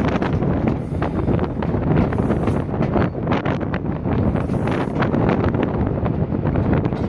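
Wind buffeting the microphone held out of an open carriage window of a moving train, over the train's running noise.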